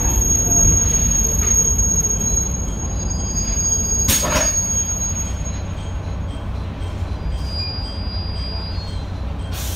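Diesel railcar's engine rumbling low as the train crawls or stands, with a thin high whine. A short hiss of air comes about four seconds in.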